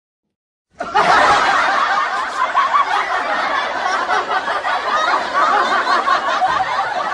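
A laughing sound effect: many voices laughing at once, starting suddenly about a second in after silence.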